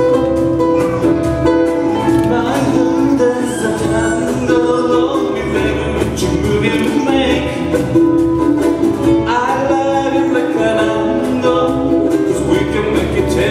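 Live Hawaiian-style band music led by strummed ukuleles, with a cajon and a bass-register guitar underneath.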